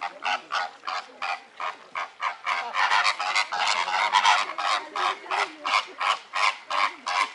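A flock of greater flamingos honking, with short goose-like calls from many birds overlapping at about three a second, busiest in the middle.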